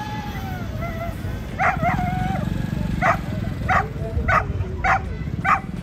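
A dog gives a drawn-out whine, then barks in a steady run of about six barks, roughly one every half second, over low crowd rumble.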